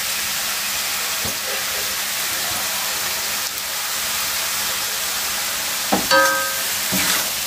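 Cabbage, spring onion and meatballs frying in a hot wok with a steady sizzle. About six seconds in, the spatula knocks and scrapes against the wok as the stirring resumes.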